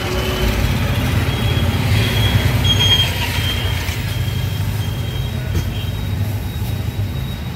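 Auto-rickshaw's single-cylinder engine running steadily while it drives through traffic, heard from inside the open cab as a low rumble with road and traffic noise. Faint high tones come and go in the middle.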